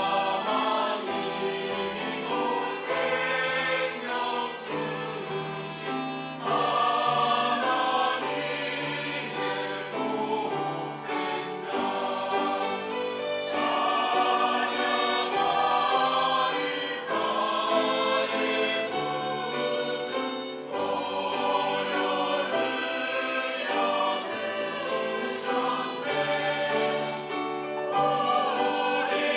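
Church choir singing an Easter anthem, many voices holding sustained chords together.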